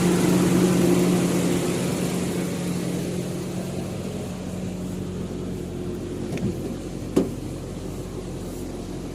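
Toyota 7K four-cylinder engine running at a steady, too-high idle, perhaps around 2,000 rpm: the high-idle fault being diagnosed. A short knock and a sharp click sound a little before and about seven seconds in.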